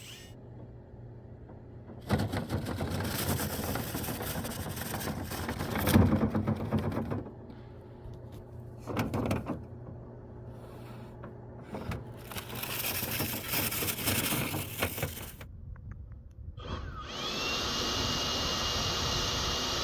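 Dryer vent cleaning tools at work: a power drill spinning a cleaning brush that rattles and scrapes inside the vent duct, in several bursts that start and stop abruptly. Near the end a steady blower or vacuum noise with a faint high whine takes over.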